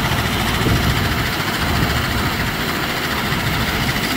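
An engine running steadily: a continuous low rumble with an even hiss over it.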